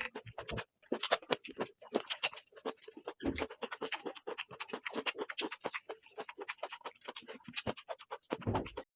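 Dense, irregular scratching and crackling clicks that stop abruptly near the end.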